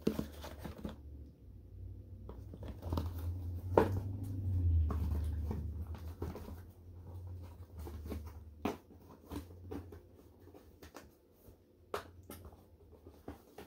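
A cardboard gift box being handled and opened by hand: scattered taps, scrapes and rustles of cardboard and packing, with a low rumble in the middle.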